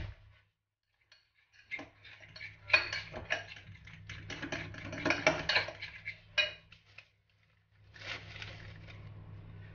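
Metal fork stirring and mashing thick biscuit dough in a glass bowl: rapid clinks and scrapes of the tines against the glass, with a brief pause about seven seconds in before softer stirring resumes over a steady low hum.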